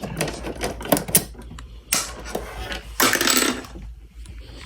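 Clicks, knocks and rattles of a fire alarm pull station being handled and reset, with a longer scraping rush about three seconds in.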